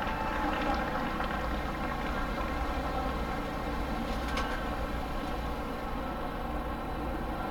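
Steady hum of a large cruise ship's machinery running while it lies moored before departure: a constant drone made of many fixed tones over a low rumble.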